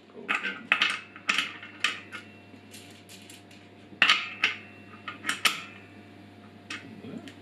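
Metal parts of a Powerfix angle grinder stand clinking and knocking as they are fitted together by hand: about a dozen sharp clinks, some with a short metallic ring, the loudest about four seconds in.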